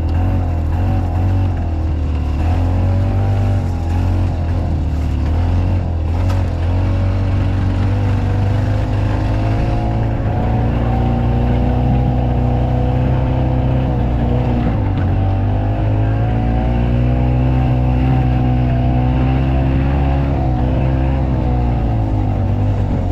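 Harley-Davidson golf car engine running while under way, its pitch rising and falling as the car speeds up and slows, with dips about two-thirds of the way through and again near the end.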